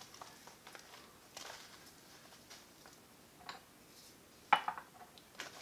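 Dry Dragon Well tea leaves being tipped from a foil bag into a porcelain gaiwan: faint foil crinkling and light ticks of leaves dropping into the bowl, with one sharper click about four and a half seconds in.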